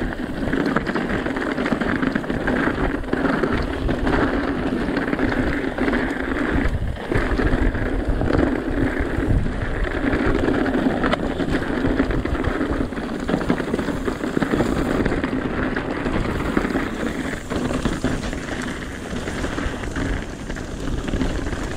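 Mountain bike riding fast down a rocky dirt singletrack: a continuous rumble and crackle of tyres over gravel and stones, with rattle from the bike, occasional knocks over bumps, and wind buffeting the rider's camera microphone.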